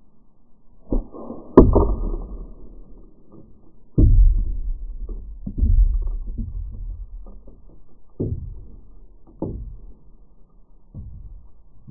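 A slingshot shot smashes an ice popsicle perched on a tube with a sharp crack about a second and a half in. Several duller knocks and thumps on the wooden table follow and fade out.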